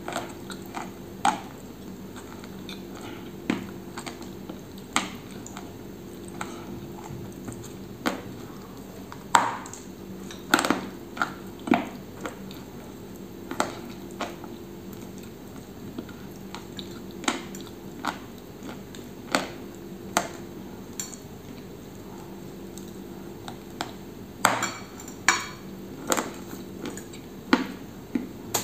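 Close-up biting and chewing of a chocolate-coated dessert, with sharp crisp crunches of the shell every second or two and a quick run of them near the end. A steady low hum runs underneath.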